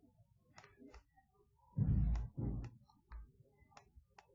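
Light, irregular clicks of a stylus tapping and dragging on a writing tablet while words are handwritten, about seven in all. Near the middle comes a louder, low, muffled sound in two parts.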